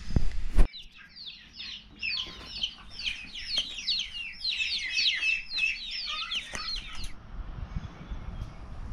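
A brief loud rustle of handling, then many birds chirping, with rapid overlapping high chirps that cut off abruptly about seven seconds in.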